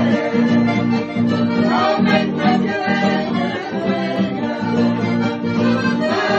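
Piano accordion and acoustic guitar playing a kaluyo, the Bolivian valley folk dance song, with a regular beat of accordion bass chords and a voice singing along.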